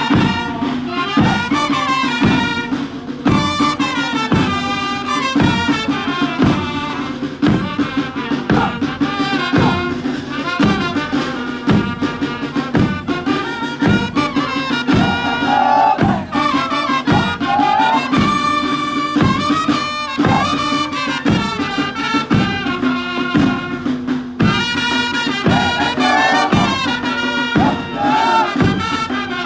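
Music with a steady drumbeat, about one and a half beats a second, under a melody.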